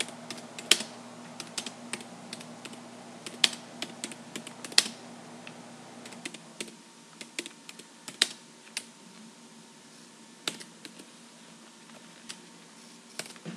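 Typing on a computer keyboard: a run of separate, irregularly spaced key clicks as a short sentence is typed.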